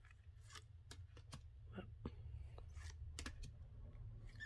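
Tarot cards being flipped through by hand: soft, irregular clicks of card stock as each card slides off the front of the deck, with a few in quick succession a little past three seconds in, over a low steady hum.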